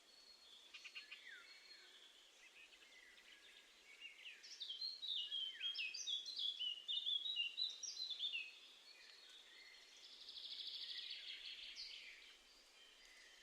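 Small songbirds singing outdoors. About four seconds in comes a four-second run of quick, varied high chirping notes, then a fast buzzy trill lasting about two seconds, over a faint steady hiss.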